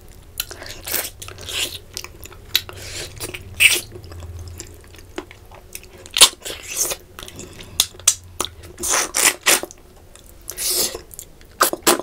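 A person biting into and chewing fried fish, with crunching, in short irregular bursts.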